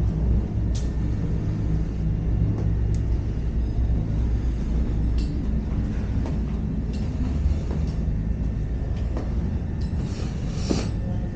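A steady low rumble with scattered light taps of footsteps going down a stairway, and a brief rustle about ten seconds in.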